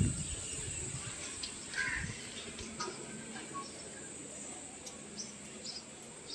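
Steady, high-pitched drone of insects, with a few short chirps and ticks scattered over it. A low rumble sounds in the first half second.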